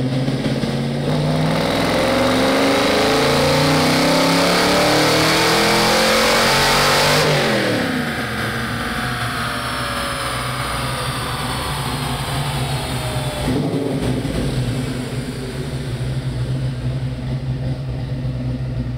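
Supercharged 5.0 V8 of a Fox body Mustang at full throttle on a chassis dyno, revs climbing for about seven seconds. Then the throttle snaps shut and it coasts down, a high whine sliding down in pitch as the revs fall, and it settles into a steady lower run near the end.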